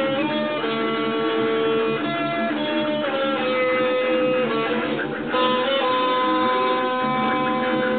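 Electric guitar playing held notes, the pitch changing every second or so, with a short drop in level about five seconds in.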